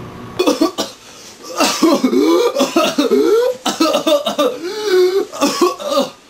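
A person coughing in a long, loud fit of voiced coughs, acted out as a whooping cough attack.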